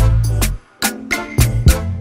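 Upbeat background music with a steady drum beat and a bass line.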